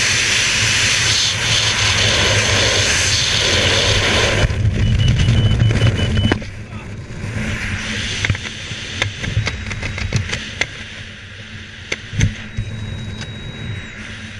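Freefall wind rushing hard over a skydiver's helmet camera. It cuts off suddenly about six seconds in as the parachute opens, leaving quieter wind with scattered ticks and pops.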